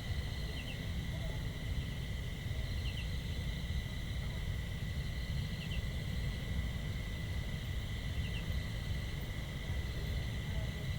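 Countryside outdoor ambience: a steady high insect drone, a short double chirp repeating every two to three seconds, and a low rumble underneath.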